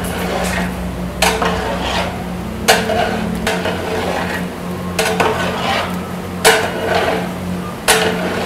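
A long-handled ladle scraping and stirring mutton masala in a large aluminium cooking pot, in separate strokes about every one and a half seconds, over a steady low hum.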